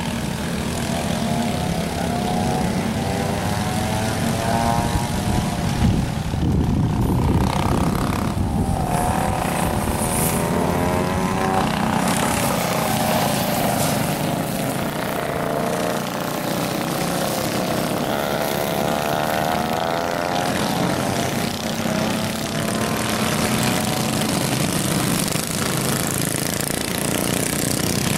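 Several vintage minibikes' small single-cylinder engines buzzing while racing, their overlapping pitches rising and falling as the riders accelerate and back off through the turns.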